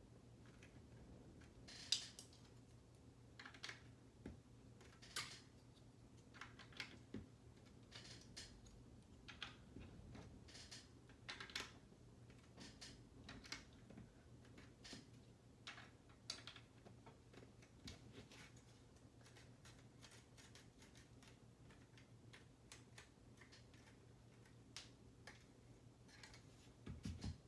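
Lego plastic bricks being handled and pressed together: scattered small clicks and taps at an irregular pace, over a faint steady low hum.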